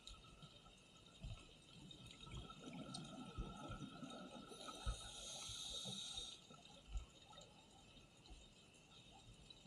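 Scuba regulator breathing underwater: a hiss of air through the regulator for a couple of seconds about halfway through, with a faint low bubbling rumble and a few soft knocks.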